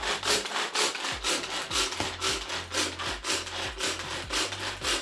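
Rhythmic rasping scrapes, about four strokes a second, from food being worked by hand during kitchen preparation.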